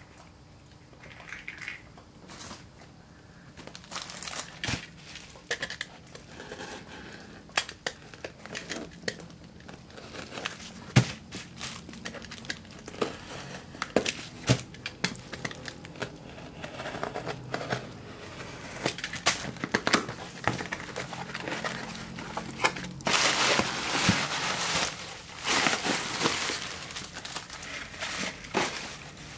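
Parcel being unpacked by hand: a cardboard box knocked and handled, with packing material crinkling and rustling through many small clicks. The crinkling is loudest and densest in the last few seconds, as a hand rummages through shredded-paper filler.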